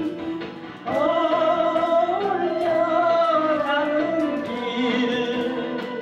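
A man singing into a microphone over a karaoke backing track, amplified. About a second in he holds one long note with a wavering pitch for nearly three seconds, over a steady accompaniment with a beat.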